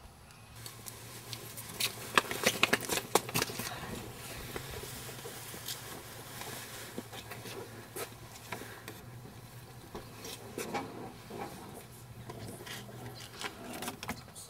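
Scattered clicks, knocks and rustling of people getting into a limousine, densest a couple of seconds in, over a faint low steady hum.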